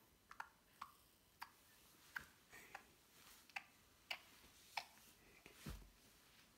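Soft, wet mouth clicks and lip smacks, about ten irregularly spaced in six seconds, over near silence, with one duller knock near the end.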